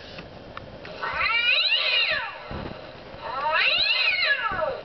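Gemmy Fraidy Cat animated Halloween toy playing recorded cat yowls through its small built-in speaker: two long calls, each rising and then falling in pitch.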